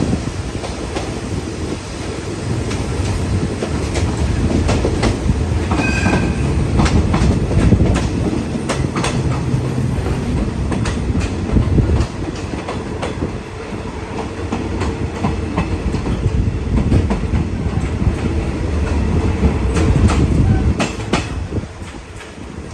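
Passenger train running on the rails: a steady low rumble with frequent sharp clicks of the wheels over rail joints, and a brief high squeal about six seconds in. It eases off near the end.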